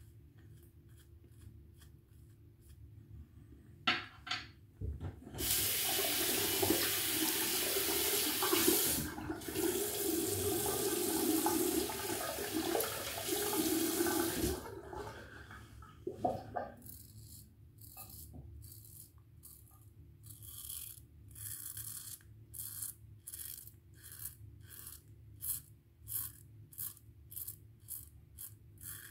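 Tap water running into a sink for about nine seconds, then a long run of short, quick scrapes of a Merkur Futur safety razor, about two strokes a second.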